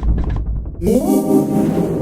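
Intro music: a deep bass, then an organ-like synthesizer chord that slides up into place about a second in and is held.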